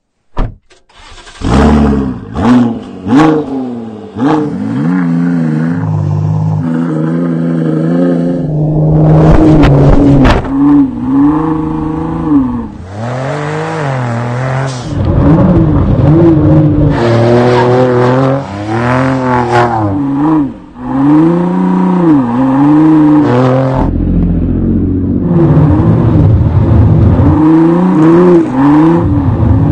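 Ford GT's twin-turbo 3.5-litre V6 revving hard while the car slides through snow, its pitch climbing and falling again and again as the throttle is worked. A single sharp crack sounds just after the start.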